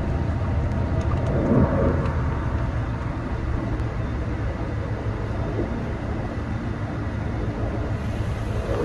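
Steady low rumble of a car driving along a road, with a brief louder swell about a second and a half in.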